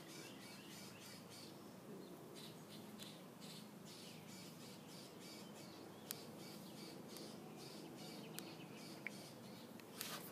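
Faint quick chirps repeating over a low steady hum, with a few sharp clicks later on.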